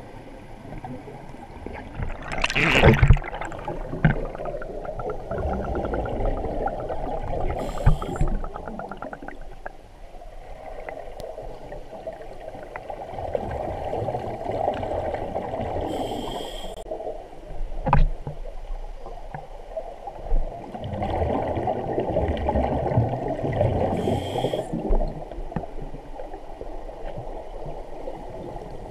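Scuba diver breathing through a regulator underwater, heard through the camera housing: slow cycles of exhaled bubbles gurgling, each ended by a short hiss of inhalation, roughly every eight seconds. A brief loud burst of noise comes about three seconds in, and a single sharp click about two-thirds through.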